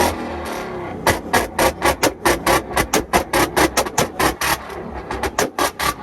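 Rapid, regular banging, about five or six sharp strikes a second, starting about a second in.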